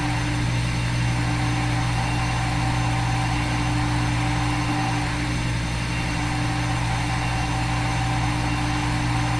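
Steady machine hum with several fixed tones, typical of a CNC simulator's synthesized spindle and milling sound while the program runs.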